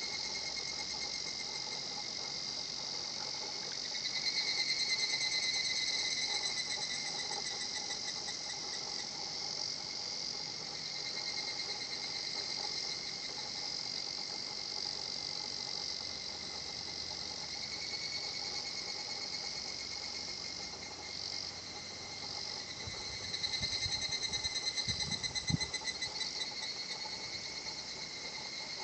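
Higurashi cicadas (evening cicadas) calling their 'kana-kana-kana' in a continuous chorus of fast, pulsing trills. The chorus swells about four seconds in and again near the end, where a few soft low knocks are heard.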